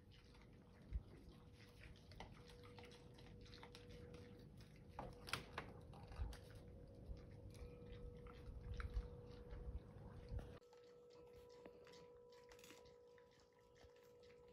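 Javelinas (collared peccaries) faintly crunching and chewing birdseed, heard as scattered small crunches and clicks over a faint steady hum. Low rumbling background noise drops away about ten seconds in.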